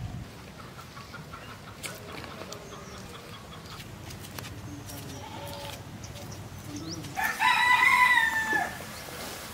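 A rooster crowing once, a long call of about a second and a half near the end that falls in pitch as it ends. Before it, faint bird chirps.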